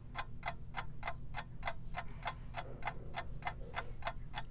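Steady clock ticking, fast and even at about four ticks a second, over a faint low hum.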